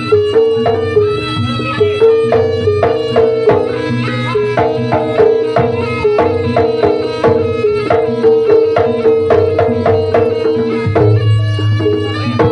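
Jaranan ensemble playing through a sound system: a two-headed kendang barrel drum struck by hand in quick strokes, over steady held tones from the rest of the ensemble.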